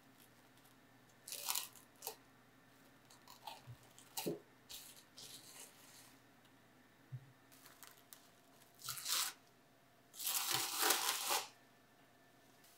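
Plastic cling film being handled and stretched over a glass bowl: irregular crinkling rustles and short tearing crackles, with the longest, loudest crinkle near the end.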